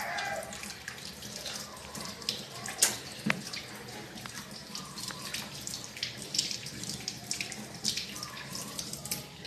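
Water running from a tap into a sink while hands are washed and rinsed under it, with a couple of sharp knocks or splashes about three seconds in.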